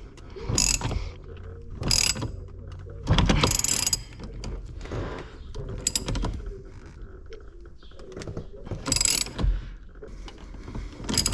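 Hand ratchet clicking in repeated short bursts as the 21 mm steering-wheel nut is run off the steering shaft of a C5 Corvette.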